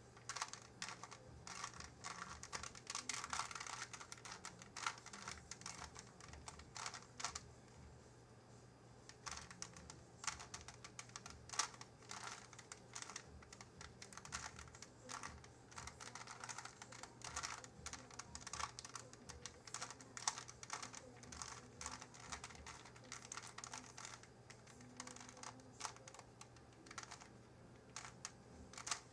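Rubik's Cube being turned by hand while the last layer is solved: quick runs of plastic clicking as the layers snap round, with a short pause about eight seconds in.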